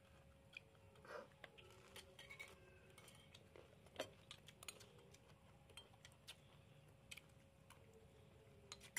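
Faint, scattered clinks and taps of metal spoons against ceramic bowls and plates during a meal, the sharpest about four seconds in, over a faint steady hum.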